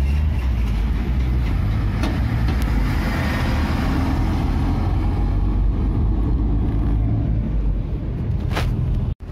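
Car engine and tyre noise heard from inside the cabin as the car rolls along slowly: a steady low rumble with a hiss of road noise. The sound cuts out sharply for a moment near the end.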